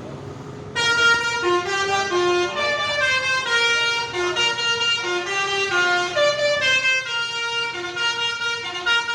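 Bus 'telolet' horn, a set of musical air horns, playing a multi-note tune of stepping pitches over a held note, starting about a second in.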